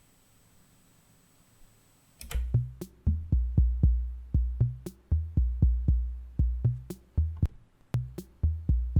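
Arturia DrumBrute analog drum machine playing a beat that starts a little over two seconds in: deep kick drum hits with long decaying tails under short, sharp clicky hits. Before it, near silence.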